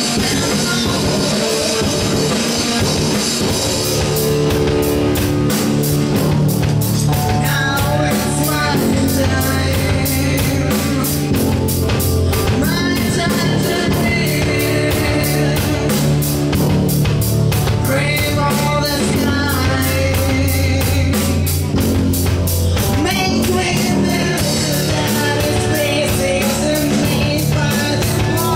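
Live rock band playing: drum kit, electric guitars, bass guitar and a singing voice. The drums turn to fast, even strokes about four seconds in, and the singing comes in phrases a few seconds later.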